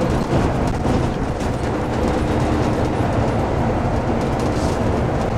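Steady engine and road noise heard from inside a moving vehicle's cab as it drives along.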